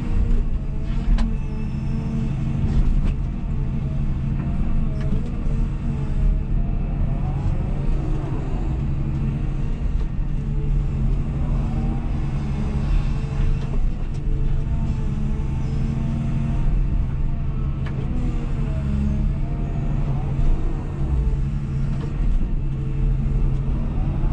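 Cat 323F excavator heard from inside the cab while digging: the diesel engine runs steadily under load, with a whine that rises and falls in pitch over and over as the boom and bucket work.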